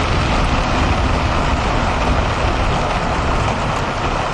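Steady heavy rain drumming on a vehicle's roof and windshield, heard from inside the cabin over the deep rumble of the running engine.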